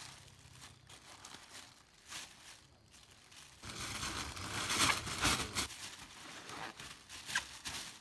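Thin clear plastic bag crinkling and rustling as handfuls of leafy greens are pushed into it, loudest in the middle, with a sharp crackle near the end.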